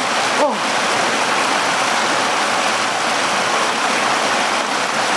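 Mountain stream water rushing steadily, with one short pitched sound that rises and falls about half a second in.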